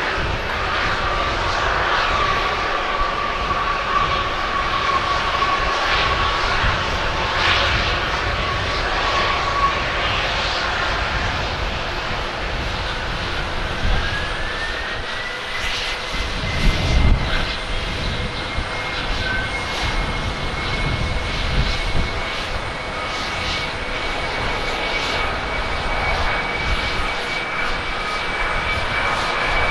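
Boeing 767 jet airliner engines at takeoff power on the runway: steady jet noise with a fan whine that fades out about a third of the way through. About halfway through, a second 767's engines spool up for takeoff, their whine rising and then holding high, with a brief low rumble just after.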